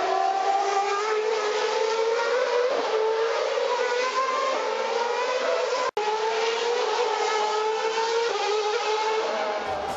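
Formula One car's 2.4-litre V8 engine running at high revs. Its note slides slowly down and jumps back up several times, with a momentary break a little past halfway.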